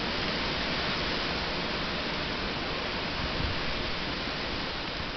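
Steady rushing noise of gale-force storm wind and rain, with a brief low thump about three and a half seconds in.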